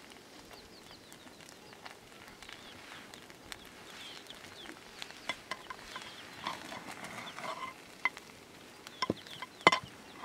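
Metal ladle stirring and scraping thick maize-flour mash (dhido) in a pot, with scattered clicks and two sharp knocks near the end, the loudest sounds. Chickens and small birds call faintly in the background.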